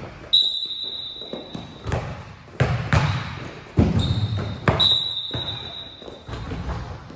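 Basketballs bouncing on a gym floor: sharp, irregular thuds, about seven in all. Two held high-pitched squeals, each over a second long, sound over the first and middle thuds.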